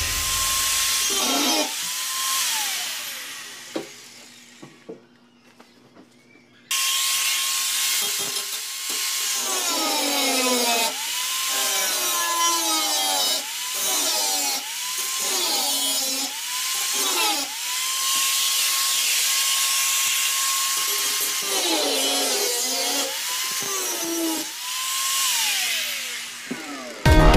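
Electric angle grinder with a cut-off disc cutting into the steel top of a gas stove: a high motor whine with a hiss from the cut, sagging in pitch each time the disc bites into the metal. About two seconds in it winds down and goes nearly quiet, then it starts up suddenly around seven seconds in and cuts again in repeated bites until just before the end.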